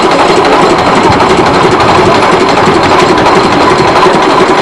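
Engine of a small narrow-gauge train locomotive running steadily, loud and close, with a fast, even rattle.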